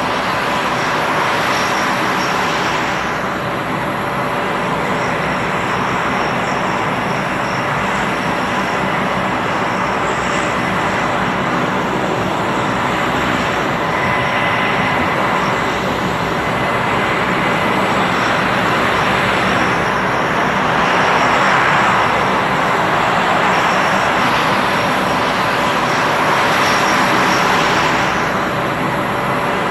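Fairchild Republic A-10 Thunderbolt II jets running on the ground, their TF34 turbofan engines giving a steady high whine over a loud rushing noise. The sound swells a little about two-thirds of the way through and again near the end.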